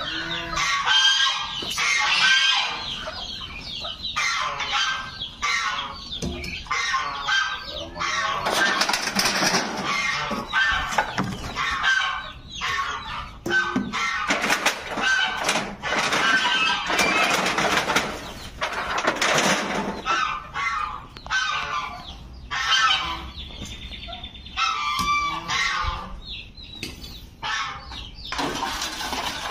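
Geese honking and chickens clucking repeatedly in a poultry pen, with many overlapping calls.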